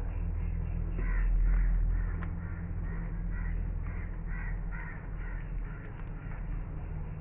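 A crow cawing repeatedly, about two calls a second for several seconds, over a steady low hum.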